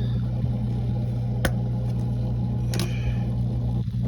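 Samsung dishwasher running just after being started on a quick wash cycle: a steady mechanical hum, with a sharp click about a second and a half in and a brief rattle near three seconds.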